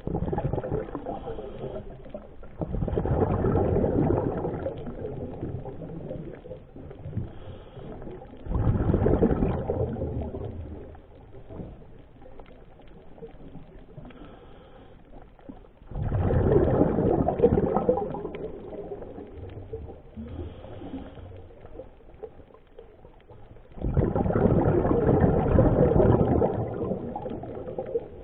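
Scuba diver breathing underwater through a regulator: exhaled bubbles rush out in bursts of two to three seconds, four times at about seven-second intervals, with quieter inhalations between.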